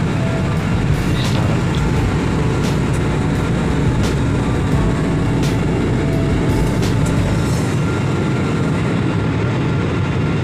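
Steady cabin noise of a jet airliner in cruise: its turbofan engines and the air rushing past give an even, low rumble.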